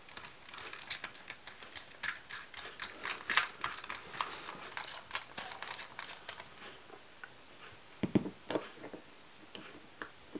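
Light metallic clicking and clinking of a nut being spun down a threaded screw and washers shifting against a plastic bearing shell, an improvised hand press being set up. The clicks come thick and irregular for about six seconds, then thin out, with a couple of duller knocks later on.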